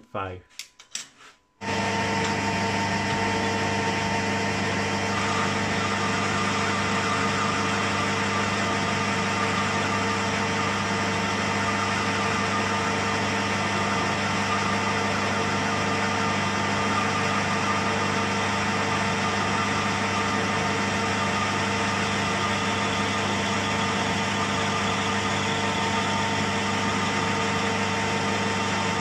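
Metal-turning lathe starting up after a moment of short knocks, then running steadily at speed: a constant motor and gear-train hum with a whine of several fixed tones.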